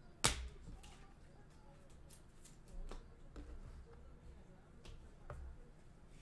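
A stack of trading cards handled by hand: one sharp snap about a quarter second in, then a few softer clicks and taps as the cards are shuffled and sorted.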